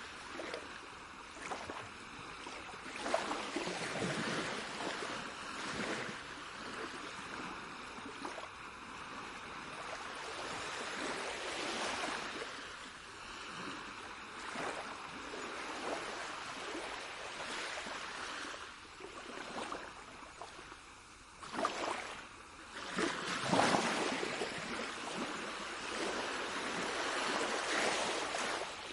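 Rushing water, a steady hiss that swells and falls back every few seconds, like waves washing in.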